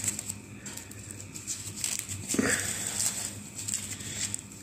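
Paper or tissue wrapping rustling and crinkling as it is peeled by hand off a small thermoelectric module.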